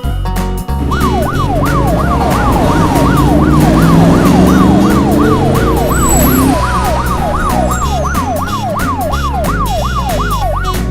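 Fast wailing siren sound effect, about three rising-and-falling sweeps a second, starting about a second in, over background music with a steady beat. In the first half a lower engine-like sound revs upward.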